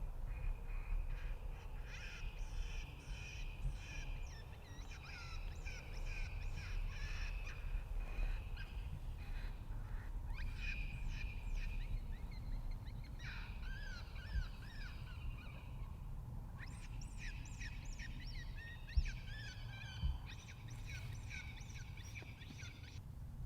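Bird calls in dense overlapping bursts, cawing and chirping, over a steady low rumble of wind, with two short thumps near the end.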